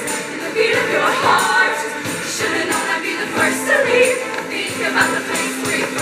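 Show choir women's section singing together over instrumental accompaniment with a steady beat.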